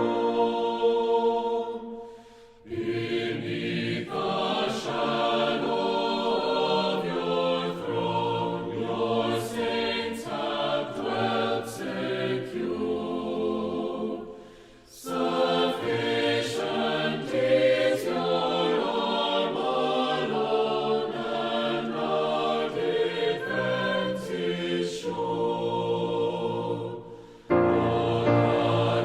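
Choir singing a slow sacred song in long phrases, with brief pauses between them about two and a half seconds in, about halfway through, and near the end.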